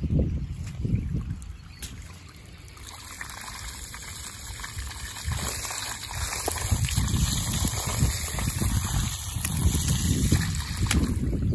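Water jetting from the open end of a black pipe onto wet, muddy ground, with a hand partly covering the outlet to fan it into a spray. A steady hissing spray that grows louder about three seconds in, over an uneven low splashing rumble.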